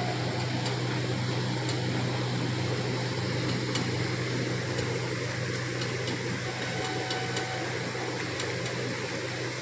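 Steady hum of running machinery: a constant low drone under an even hiss, with faint clicks now and then.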